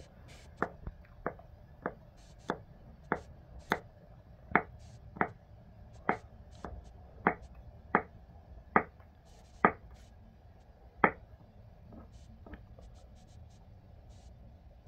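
Kitchen knife chopping salad ingredients: about fifteen steady strokes, a little under one a second, stopping about eleven seconds in.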